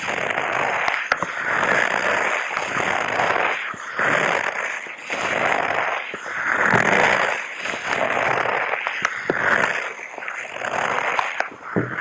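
A person breathing loudly in and out close to the microphone: about five long breaths in a row, with a few faint clicks between them.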